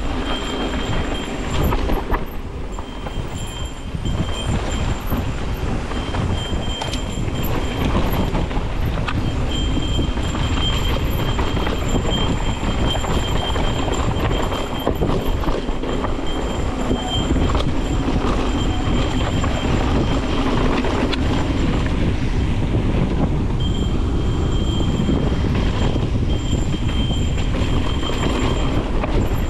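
Evil Wreckoning LS mountain bike riding down a dirt singletrack trail: tyres rumbling and rattling over dirt and rocks, with wind noise on the microphone. A thin, high-pitched freehub buzz comes and goes as the rider alternately coasts and pedals.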